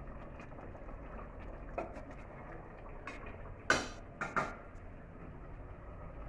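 Metal spoon clinking and scraping against a steel cooking pot during stirring: a few sharp clinks, the loudest about three and a half seconds in, followed quickly by two more, over a steady low hum.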